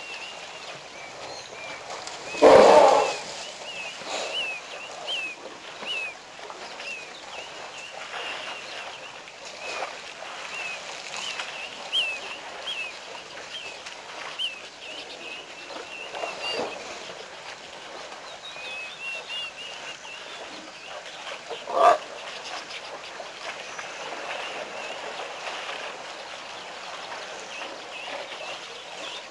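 Small birds chirping in quick, repeated high notes over a steady outdoor hiss, broken by a loud, short elephant call about two and a half seconds in and a shorter one a little past twenty seconds.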